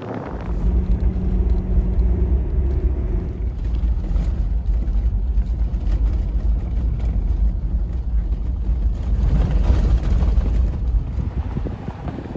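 Toyota Land Cruiser driving along a snowy dirt track: a steady, loud low rumble of engine and tyres, with a droning tone for the first few seconds.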